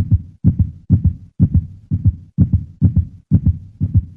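Deep double thumps like a heartbeat, repeating steadily at about two pairs a second.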